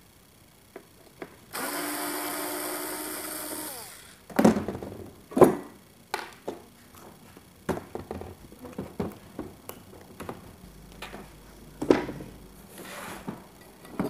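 Small cordless electric screwdriver running for about two and a half seconds while turning a screw in the speaker cabinet, its whine dropping in pitch as it stops. Then a scatter of knocks and clatters as parts and wiring inside the cabinet are handled.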